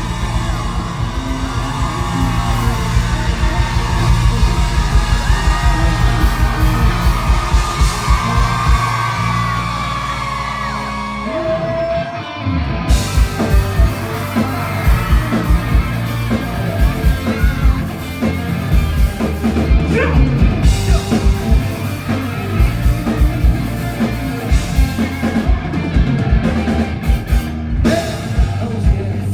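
Live rock band playing loudly with a singer, drums, bass and guitars, with audience screams and cheering mixed in. About twelve seconds in the sound thins for a moment, then the band comes back in with hard, regular drum hits.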